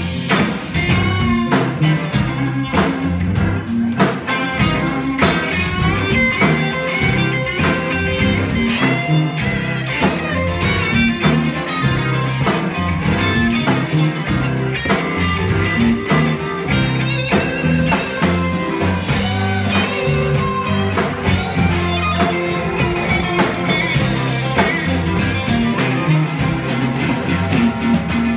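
Live blues band playing an instrumental passage with no vocals: electric guitar and saxophone over bass and drums.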